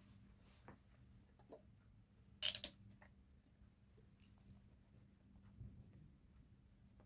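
Quiet handling noises of a cloth being rubbed on a leather chair seat and a small plastic bottle being handled, with a short cluster of sharp clicks about two and a half seconds in.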